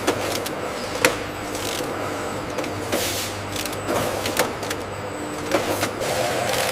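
Factory production machinery running with a steady hum, broken by irregular sharp clicks and knocks.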